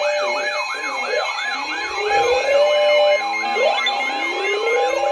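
Electronic sirens sounding together: a fast yelp sweeping up and down about four times a second over slower wails that climb in pitch.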